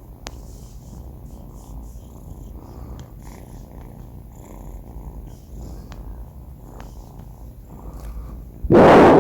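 Sleeping four-month-old kitten snoring with a steady low rumble. Near the end comes a sudden, much louder burst of noise lasting about half a second.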